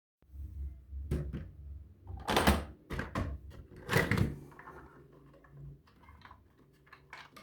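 Hard knocks, thuds and clattering of objects being handled. The loudest come about two and a half and four seconds in, with a low rumble in the first couple of seconds and lighter ticks and taps after that.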